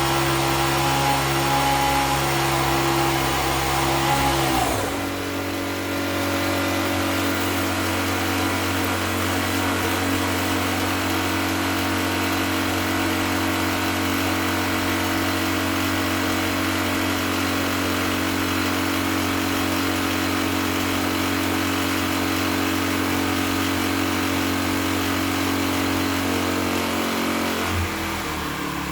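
A motor or machine running steadily with a humming tone. Its pitch shifts to a new steady note about five seconds in and changes again near the end.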